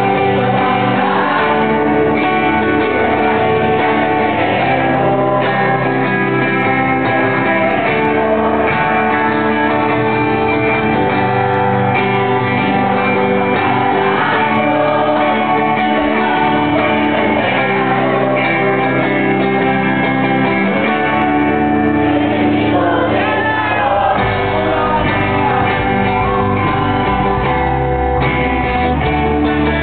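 A band playing a song live with a singer, steady and full throughout, with sustained chords under a wavering sung melody.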